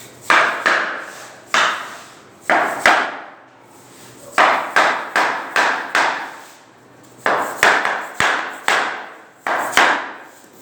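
Hammer blows on wood: about sixteen sharp strikes in quick clusters of two to five, with short pauses between the clusters, each blow ringing briefly.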